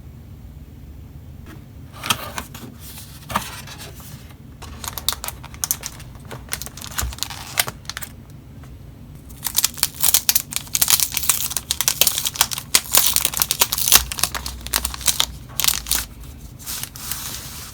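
Packaging of a Logitech keyboard being opened by hand: tearing and crinkling of paper and plastic wrap. It comes in short, irregular spurts after about two seconds of quiet, then runs denser and louder through the second half.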